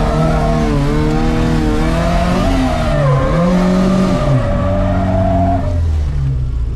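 Drift car's engine revving hard with tyres squealing. The revs dip about halfway through and climb again. Near the end the squeal stops and the engine drops to lower, steadier revs.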